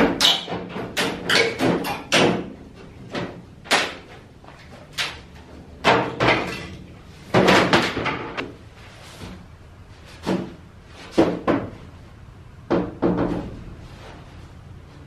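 Sheet-metal duct pipe sections clanking as they are handled and fitted together: an irregular run of sharp metallic knocks and rattles, bunched in quick clusters, with a lull before the last few.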